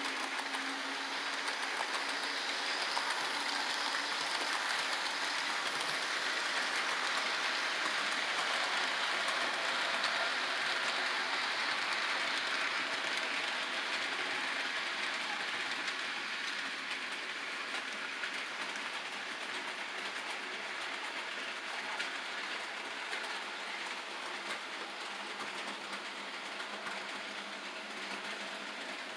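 HO scale model freight train rolling past on sectional track: a steady whirring of the locomotive motors and metal wheels on the rails, with faint ticks, growing quieter toward the end as the train moves away.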